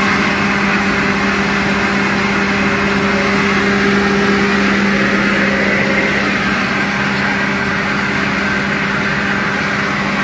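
Tractor engine running steadily at a constant speed, an even hum with no change in pitch.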